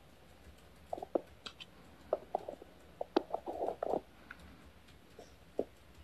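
Irregular short knocks and scuffles from a small puppy rolling and playing on a tile floor, bunched together about three to four seconds in.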